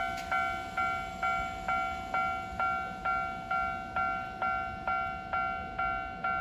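Japanese railway level-crossing alarm ringing: an electronic bell strikes evenly a little over twice a second, each ring fading before the next. It is the warning that the crossing is closed for an approaching train.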